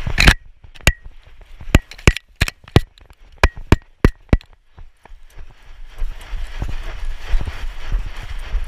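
A dog-mounted GoPro on a loose elastic chest harness knocks and clicks about ten times in four seconds, in sharp irregular taps with a short ring, as the camera swings against the moving dog. From about six seconds in, a steady rustle and rumble of fur and movement rubs against the camera housing.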